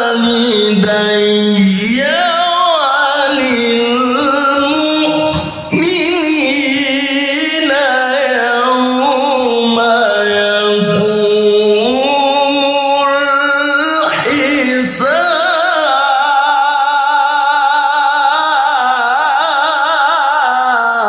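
A male qari's melodic Qur'an recitation (tilawah), sung in long ornamented phrases with held, wavering notes. He pauses briefly for breath about five and fourteen seconds in.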